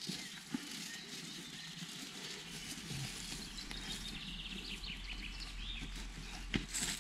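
Hands scraping and rustling through dry grass, fallen leaves and sandy soil: a steady scratchy rustle with small clicks, a couple of sharp knocks near the end, and faint bird chirps in the middle.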